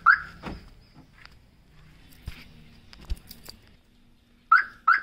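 Car alarm chirping: one short chirp right at the start and a quick pair near the end, the kind a car's security system gives to confirm a key-fob lock or unlock. Two dull knocks come in between.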